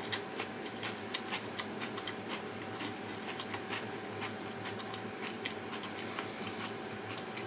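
Eating close to the microphone: chewing with a string of small, irregular mouth clicks and smacks, several a second, over a steady low hum.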